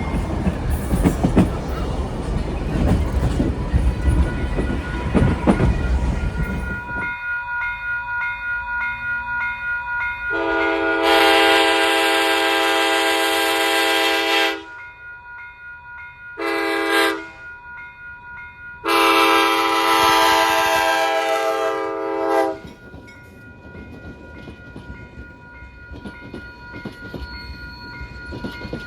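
Train rumbling and clattering along the rails, then a locomotive horn sounding a long blast, a short one and another long blast.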